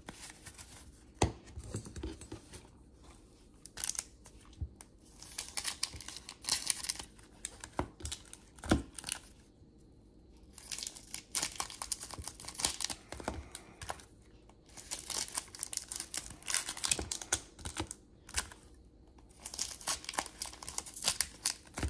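Trading-card pack wrappers being torn open and crinkled, in bursts of rustling with short pauses and a few sharp taps.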